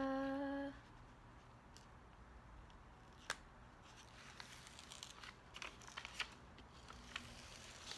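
A briefly held sung 'daaa' at the start, then faint clicks and crinkles of the plastic release film on a diamond painting canvas being picked at and peeled back, with one sharper click about three seconds in.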